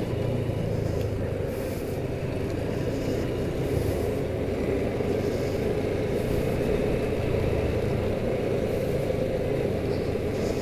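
Motorcycle engine running steadily while riding along a hill road, heard from on the bike, with wind and road noise.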